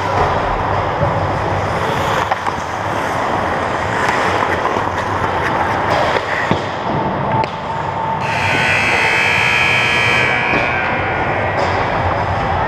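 Ice hockey rink sound on a helmet-free goalie-cam: skates on the ice, with a few sharp stick or puck clicks. A louder hissing stretch lasts about two seconds, from roughly eight seconds in.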